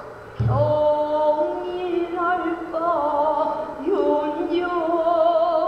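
Female pansori singer holding long notes that waver and bend in pitch. A single low buk drum stroke sounds as she comes in about half a second in.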